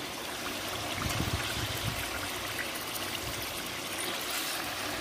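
Cubes of beef searing in hot oil in a Dutch pot: a steady sizzle as the meat browns.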